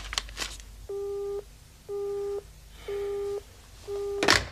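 Japanese telephone busy tone heard from a handset: four identical beeps, about one a second, each lasting about half a second. A brief loud knock near the end.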